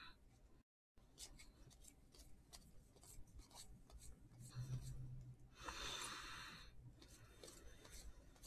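Faint rustling and ticking of trading cards being handled, slid against one another and flipped through by hand, with a brief louder rub about six seconds in.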